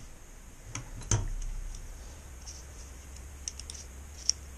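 Metal caliper and a steel linear bearing being handled: a knock about a second in, then light, sharp clicks as the caliper jaws are worked and closed on the bearing, the sharpest near the end. A faint steady low hum runs underneath.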